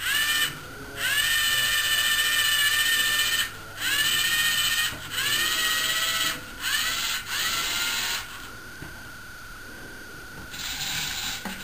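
Geared electric motors of a Lego Mindstorms robotic arm whining in about six separate runs as the arm lifts a bottle. Each run rises in pitch as the motor spins up and then holds steady, and a fainter run comes near the end.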